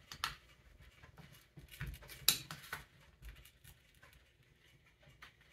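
Faint, scattered small clicks and light scrapes of a screwdriver and small metal parts on a Ford 8N carburetor body as a jet is screwed in, with one sharper click a little after two seconds.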